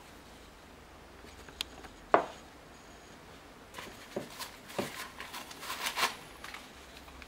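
Handling noise from a blender's power cord and its cardboard wrap being unwrapped: a sharp knock about two seconds in, then a few seconds of paper rustling and small clicks.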